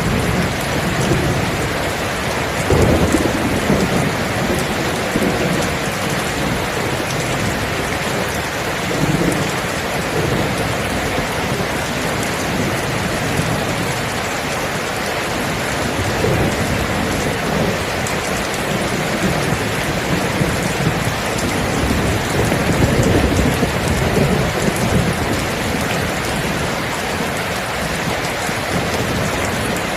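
Steady rain pouring, with low thunder rumbling in and out several times, loudest about three seconds in and again past the twenty-second mark.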